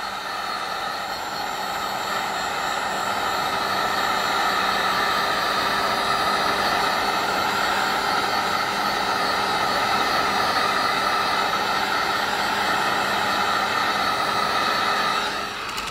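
Heat gun blowing steadily with a whining fan tone, heating a dented aluminum car door panel so the shallow area releases. It grows a little louder over the first few seconds, then holds steady.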